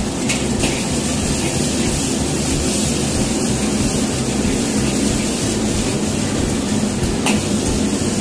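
Gas wok burner roaring steadily under a carbon-steel wok while food sizzles in it. A metal ladle knocks against the wok a few times, near the start and again near the end.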